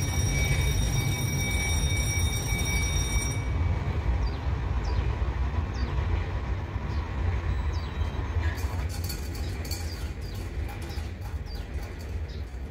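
A freight train hauling container wagons, running by with a steady deep rumble that slowly fades. A steady high-pitched ringing tone cuts off about three seconds in, and sharp clicks come through near the end.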